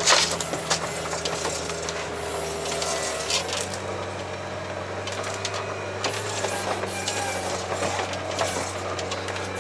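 Engine of an articulated tracked all-terrain vehicle running under load as it climbs through deep snow, a steady low drone whose note shifts about three seconds in. Constant creaking, rattling clicks run over it, with a sharp knock at the very start.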